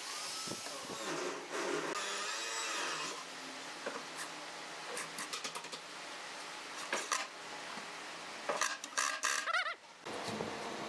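Cordless drill-driver running in short bursts with a wavering whine, driving screws into the metal hinge brackets and the wood of a cabinet. Clicks and knocks from handling the tool and fittings come between the bursts.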